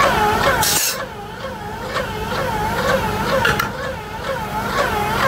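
Graco E-XP2 polyurea reactor proportioner and its pumps running, with a whine that rises and falls about two to three times a second. There is a short burst of hiss about a second in and another near the end.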